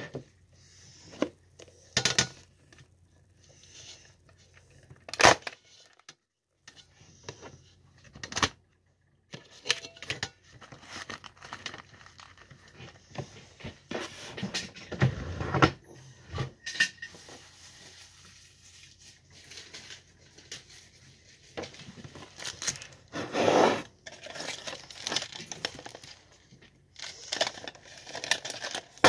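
Handling noises: scattered clicks, knocks, scrapes and crinkling as small objects are picked up and moved about on a table, with a few louder knocks.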